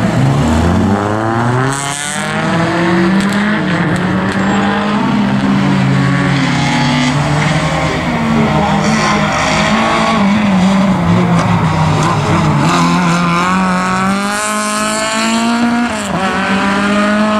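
Race car engine at hard throttle on a slalom run, its pitch rising and falling several times as the driver accelerates and lifts between the gates.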